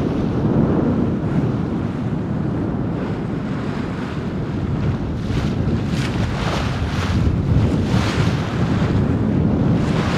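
Wind buffeting the microphone over water rushing along a sailing yacht's hull as it sails upwind in a fresh breeze. In the second half, the bow wave hisses and splashes in several surges.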